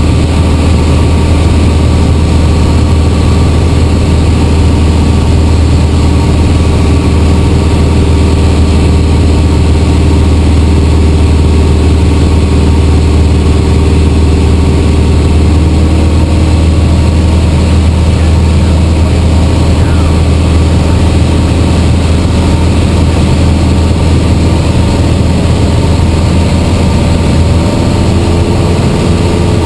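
Single-engine Piper's piston engine and propeller droning steadily, heard inside the cabin, its pitch shifting slightly about halfway through and again near the end.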